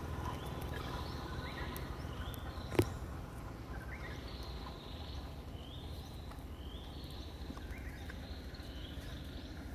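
Short high animal chirps, repeated many times over a low steady outdoor rumble, with one sharp click about three seconds in.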